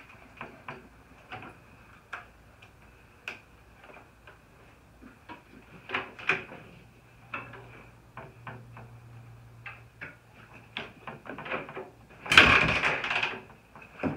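Recoil pull-starter of a Honda TRX300 ATV yanked once, a loud rasping pull lasting about a second near the end, without the engine catching; before it, scattered light clicks and knocks of handling the machine.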